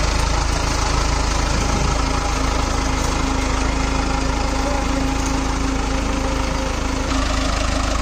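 Mahindra Arjun 555 tractor's four-cylinder diesel engine running steadily as the tractor drives through deep, flooded paddy mud.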